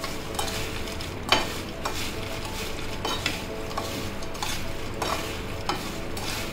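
Crisp deep-fried sweet corn kernels being tossed and mixed by hand and with a spoon on a ceramic plate: a continuous dry rattle and crackle of kernels, with sharp clicks of the spoon against the plate, the loudest about a second and a half in. The crackly rattle is a sign the kernels are fried crunchy.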